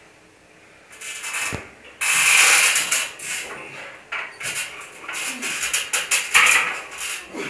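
Cable lat pulldown machine being loaded and worked: a knock about a second and a half in, then the cable running over its pulleys in uneven hissing surges with small clicks as the weight stack rises and falls.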